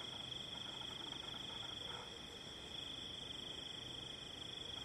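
Crickets trilling in chorus, one continuous high-pitched tone that dips a little about two seconds in.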